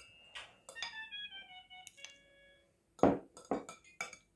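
Metal spoon clinking and scraping against a ceramic salad bowl while spreading a thick mayonnaise sauce; several taps leave a brief ringing, and the loudest knock comes about three seconds in.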